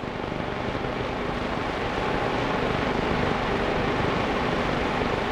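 A steady rushing drone with a faint low hum. It grows louder over the first two seconds, then holds level.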